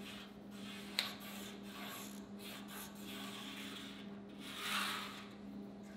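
Marker pen scratching across the rusty painted steel of a cement mixer drum as cut lines are drawn along a metal square, in a series of strokes with a light click about a second in and a longer stroke near the end.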